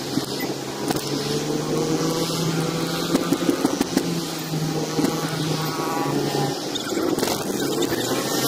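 A car driving in city traffic, heard from inside the cabin: its engine hums steadily under road noise, with other vehicles around it.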